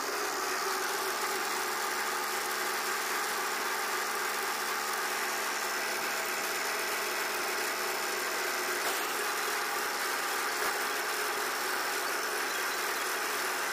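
Small drum concrete mixer running steadily, its drum turning with wet concrete inside.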